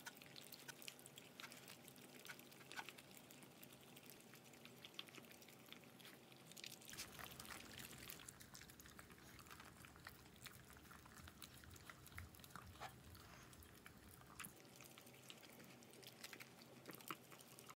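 Dogs eating salmon steak from bowls: faint, quick wet chewing and licking clicks throughout, their tongues working over the near-empty bowls.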